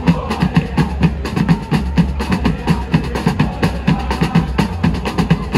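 Football supporters' drums beating a fast, even rhythm, about five hits a second, with the crowd section chanting along.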